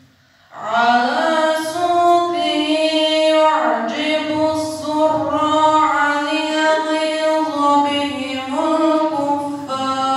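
A boy reciting the Qur'an in Arabic in melodic tajweed style. After a brief pause for breath, a long ornamented phrase of held, gliding notes begins about half a second in.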